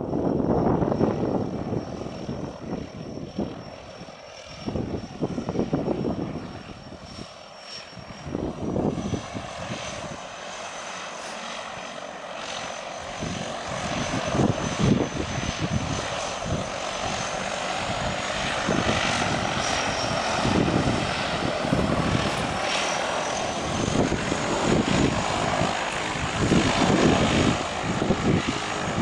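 A floatplane's engine and propeller running as it taxis on the water, with a thin high whine that drifts up and down in pitch. Irregular low buffeting comes and goes over it.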